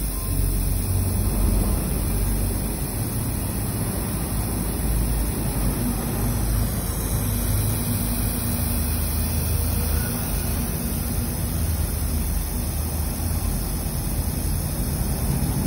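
Original Sabalon 420 mL aerosol hair spray can spraying continuously with its valve held down: a steady hiss with a low rumble underneath.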